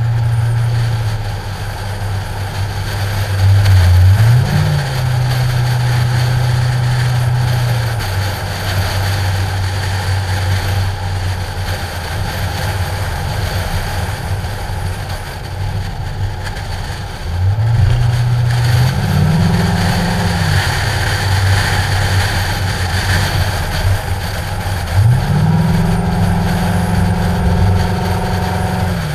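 Ford Mustang engine heard from outside on the hood while driving. It climbs in pitch and drops back three times, like pulls through the gears, between stretches of steady cruising, under a heavy rush of wind over the camera's protective case.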